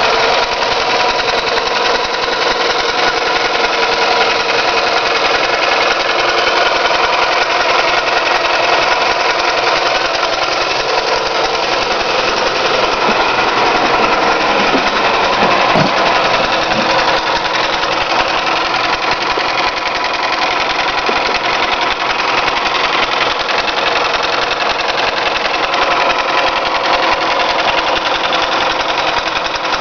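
Toyota 5S-FE 2.2-litre inline-four engine running with a steady knock from inside the engine, whose cause the owner does not know.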